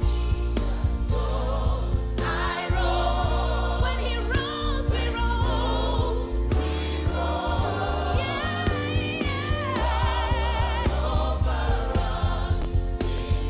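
Gospel song with singing voices over a steady bass and drum beat.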